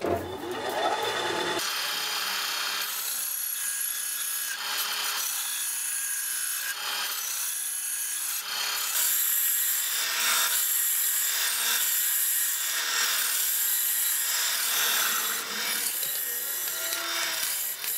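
Tabletop band saw cutting through a dry tree branch, slicing it into thin discs; the cutting noise swells and fades about once a second as each slice goes through. It is preceded for a second or so by the crackle and rustle of dry branches being broken by hand.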